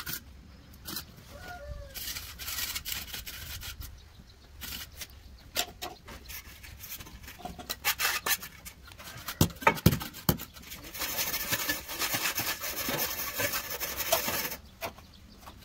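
Bursts of scraping and rubbing on a hard surface, with a few sharp knocks near the middle and the longest, loudest stretch of scraping in the second half, as in floor-tiling work.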